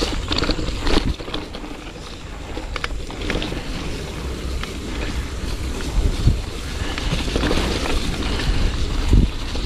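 Wind buffeting the microphone while a mountain bike rolls over a rough, rocky dirt track, with tyre noise and scattered rattles and knocks from the bike. There is a heavier thump about six seconds in and another near the end.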